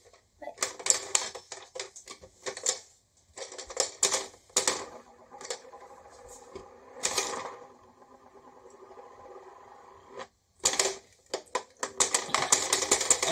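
Hard plastic clicking and rattling from a repaired late-1970s toy game, in quick bursts of sharp clicks. Between about five and ten seconds in, a quieter steady whir runs under the clicks.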